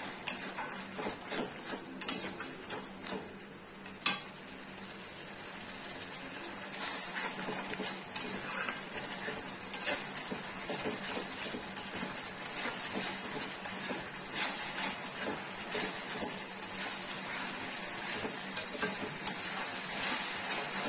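A spatula scraping and stirring a thick onion-garlic masala paste around a metal kadai, with knocks against the pan now and then (the sharpest about four seconds in) over a steady sizzle as the paste fries down with a little water. This is the bhuna stage, cooking out the raw taste of onion and garlic until the oil separates.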